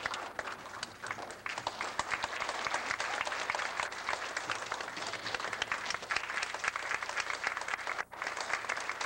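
Audience applauding, many hands clapping in a dense, continuous patter, with a brief dropout about eight seconds in.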